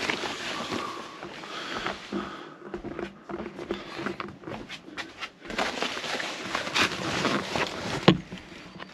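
Plastic tarpaulin crinkling and rustling as a person pushes through under it, with scattered knocks and scrapes and a sharper knock near the end.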